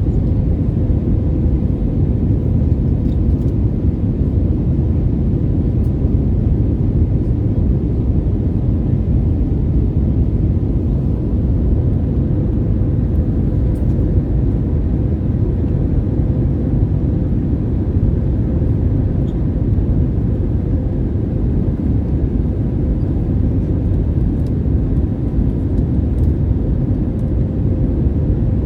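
Steady cabin noise inside an Airbus A320neo airliner on approach: a low, even rumble of airflow and its CFM LEAP-1A engines, with a faint steady hum.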